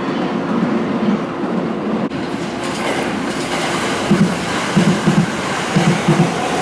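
JR East E217-series electric commuter train running past along the platform, a steady rumble with its wheels clacking over rail joints in quick pairs from about four seconds in.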